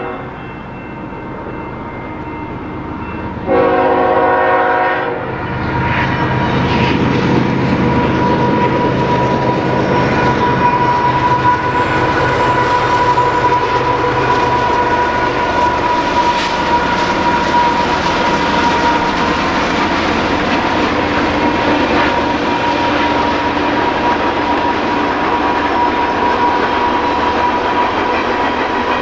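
A locomotive horn sounds one short chord blast a few seconds in. Then a loaded Canadian Pacific coal train rolls past, its wheels rumbling and clattering on the rails, with a steady high-pitched ring over the noise.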